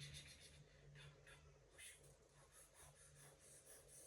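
Near silence: a few faint scratching and rustling strokes, about a second apart, over a low steady hum.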